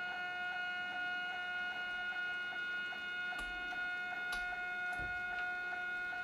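Stepper motor of an Arduino-controlled model railroad traverser driving its ball screw, a steady whine with several even overtones, as the deck travels back to its home position. A few faint clicks and low knocks come about halfway through.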